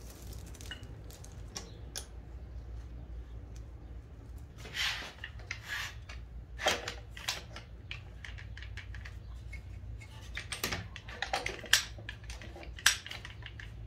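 Woodworking clamps being set and tightened on a glued-up cutting board: scattered sharp clicks and clacks from the trigger clamps and metal bar clamps, with a few short scrapes and two loud clacks near the end. A steady low hum runs underneath.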